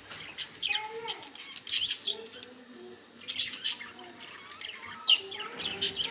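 Small pet parrots, budgerigars, chirping and chattering in a cage: many quick high chirps and short squawks, overlapping with no pause.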